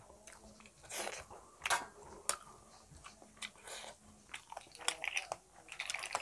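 A person chewing a hand-fed mouthful of rice and fried fish, soft wet mouth sounds with a scattering of short sharp clicks.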